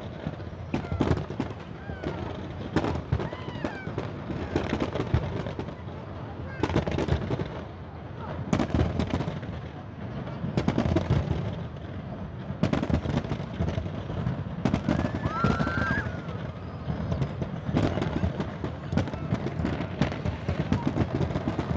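Fireworks going off: many sharp bangs throughout, some in quick rapid runs, over a steady low rumble.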